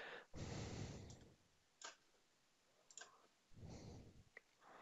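Near silence, with a few faint computer-mouse clicks, about three, spread over the stretch.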